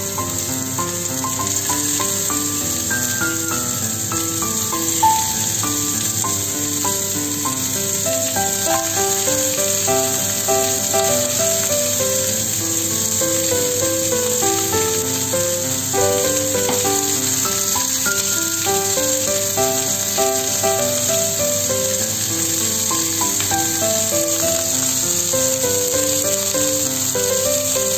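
Minced pork patties on coiled snake bean nests frying in oil in a nonstick pan, a steady sizzle, under background music with a running melody.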